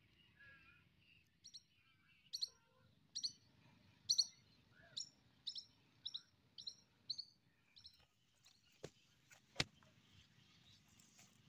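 A bird calling with a short, high chirp repeated about ten times, roughly twice a second, for several seconds. Two sharp clicks come near the end, the second one louder.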